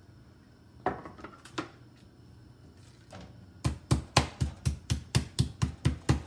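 A meat tenderizer pounding a raw pork chop to tenderize it. A few scattered knocks come first, then from about three and a half seconds in a run of rapid, even blows, about five a second.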